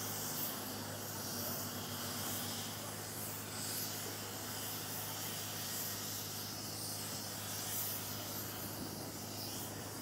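Steady outdoor hiss over a low, even engine hum, with no distinct knocks or clanks.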